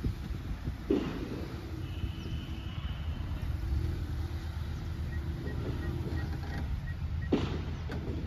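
Hyundai i20 hatchback running at low speed as it reverses slowly, a steady low engine rumble, with two brief sharp sounds about a second in and near the end.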